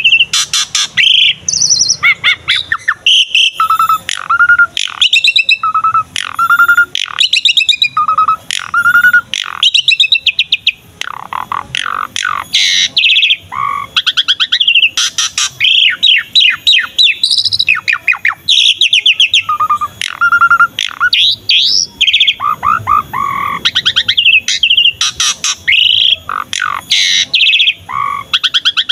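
Pied starling (jalak suren) in loud, unbroken song: fast chattering runs of repeated notes, mixed with short clear whistles.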